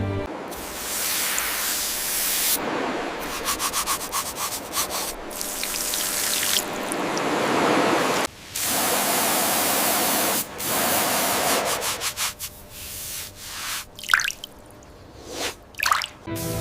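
Cleaning work on a corroded bronze artifact: loud hissing and scrubbing noise in stretches that start and stop abruptly, with a run of quick strokes early on and short separate bursts near the end.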